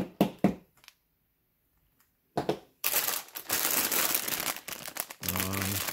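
A few short knocks, then from about two and a half seconds in a clear plastic bag of LEGO parts crinkling steadily as it is picked up and handled.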